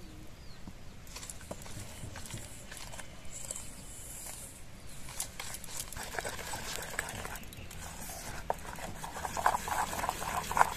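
Metal spoon beating a runny biscuit-and-milk batter in a steel bowl: rapid scraping and clinking against the bowl, getting busier and louder in the second half.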